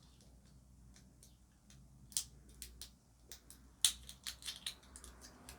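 Small sharp clicks and taps of cosmetic packaging being handled, a few scattered at first and then a quick run of them, the loudest about four seconds in.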